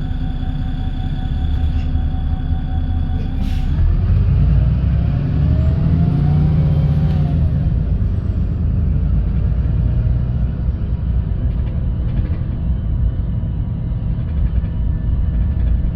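VDL SB200 Wright Pulsar 2 bus heard from inside: its diesel engine idles steadily, there is a short hiss of air about three and a half seconds in, then the engine note rises as the bus pulls away. The note drops at a gear change a few seconds later, and the bus runs on with a steady rumble.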